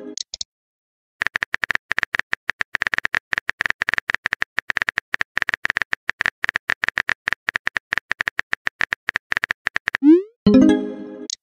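Simulated phone-keyboard sound effects: a rapid run of short tap clicks as a message is typed out. Near the end comes a quick rising swoosh and a short pitched pop, the message-sent sound.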